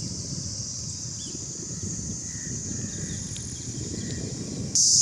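A steady high-pitched insect drone with a few faint bird chirps over an uneven low rumble. It stops abruptly near the end.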